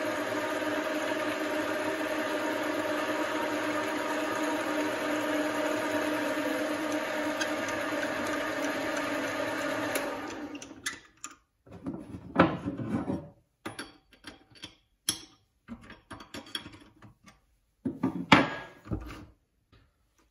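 Small bench lathe running steadily while center-drilling the end of a brass rod. The motor is switched off about halfway through. After that come scattered metal clunks and knocks as the tailstock tooling is handled, the loudest near the end.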